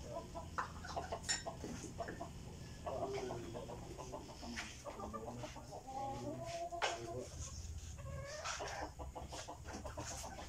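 Chickens clucking, with short calls coming every second or two, mixed with a few sharp clicks.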